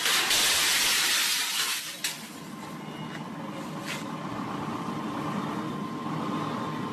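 Sheet glass breaking and crashing off a loaded flatbed truck: a loud rush of shattering glass for about two seconds. A few sharp clinks of falling pieces follow over a steady low rumble.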